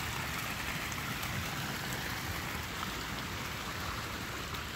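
Water spilling from a spout in a stone pool wall into a swimming pool: a steady, even splashing.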